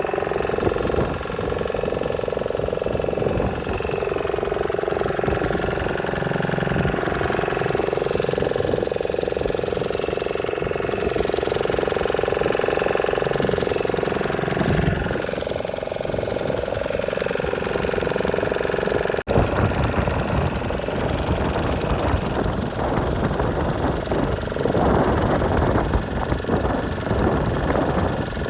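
An engine running steadily. About two-thirds of the way through the sound changes abruptly and becomes rougher and noisier.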